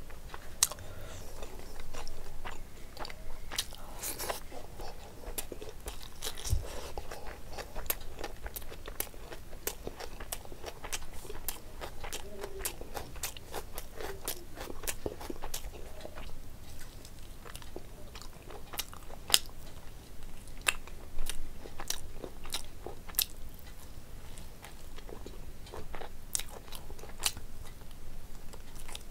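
Chewing and biting meat off the bone: curried chicken drumstick and mutton leg piece eaten by hand, with frequent irregular sharp wet mouth clicks and smacks.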